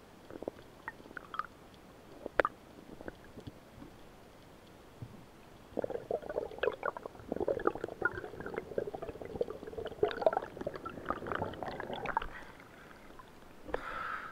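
Underwater gurgling and bubbling, heard through a camera housing as a freediver swims up toward the surface. There are a few sharp clicks at first, then a long stretch of dense crackling water noise from about halfway in. The sound changes near the end as the camera comes out at the surface.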